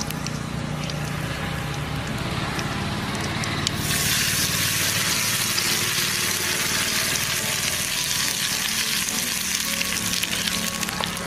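A tempering of curry leaves, dried red chillies, mustard seeds and dal frying in hot oil. About four seconds in, it gives way to a much louder, hissing sizzle as the hot tempering meets the freshly ground chutney.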